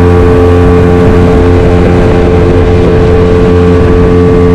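Outboard motor of a small open boat running loud and steady at constant throttle while the boat is underway at speed.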